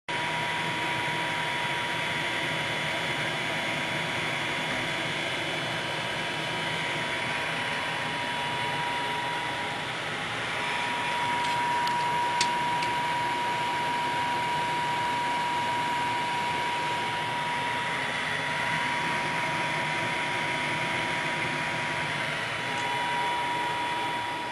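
Steady mechanical whir and hiss with a steady high whine that drops out briefly twice. There is a single sharp click about twelve seconds in.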